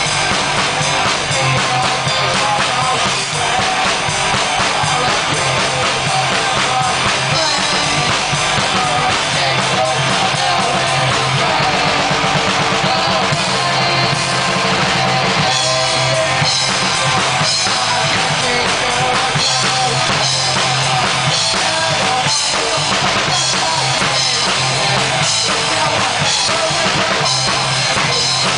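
An amateur rock band playing live: drum kit with bass drum, electric guitar and bass, loud and continuous.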